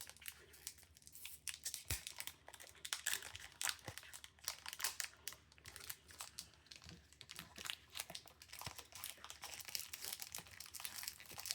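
A trading card pack wrapper being torn open and crinkled by hand, an irregular run of crackles and rustles.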